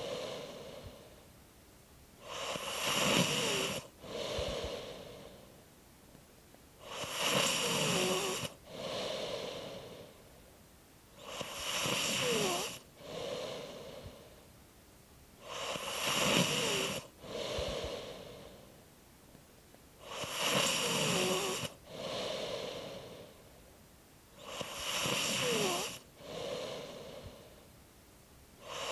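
Snoring in a slow, regular rhythm, about one breath every four and a half seconds. Each louder snore carries a quiet squeak that glides down in pitch, followed by a softer breath out.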